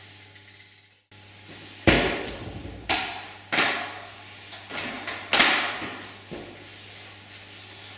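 A series of about six sharp knocks or bangs at irregular intervals, each ringing on briefly in the room. The loudest come about two, three and a half and five and a half seconds in.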